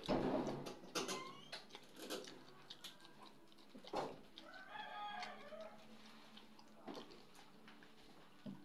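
A rooster crows once, a pitched call of about a second and a half starting about four and a half seconds in. Around it come sharp clicks and crunches of crisp fried fish being pulled apart by hand and eaten, the loudest right at the start.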